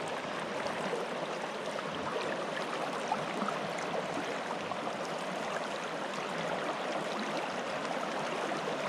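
River current flowing steadily around waders in a shallow, fast stretch: an even wash of moving water with fine crackle.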